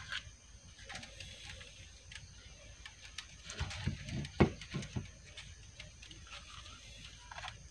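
Enamelled copper magnet wire being rubbed and scraped clean by hand: faint scratchy ticks and small clicks, with a few soft knocks about halfway through. The scraping strips the wire's varnish so solder will stick to it.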